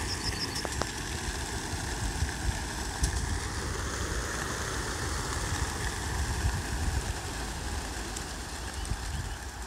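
A large flock of racing pigeons released together from a transport truck: hundreds of wings flapping at once in a steady, dense rush of noise.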